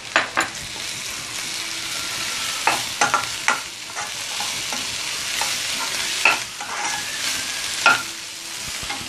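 Chopped vegetables sizzling in a nonstick wok while a steel spatula stirs and scrapes them, with several sharp clacks of the spatula against the pan.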